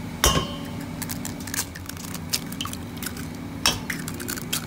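Hard clinks and knocks of equipment being handled in a noodle workshop: two sharp ones, the first about a quarter-second in with a brief ring, the second near the end, among many small ticks, over a steady low machine hum.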